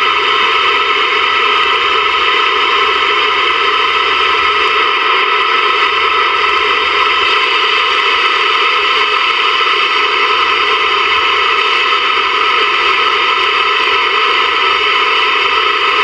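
Steady static hiss from a Ranger VR-9000 11-metre radio's speaker as it is tuned across the lower 26 MHz channels, with no station coming through.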